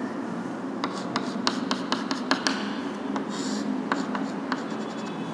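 Chalk on a blackboard as a diagram is drawn: a run of short sharp taps and clicks, with a longer scratchy stroke about three and a half seconds in.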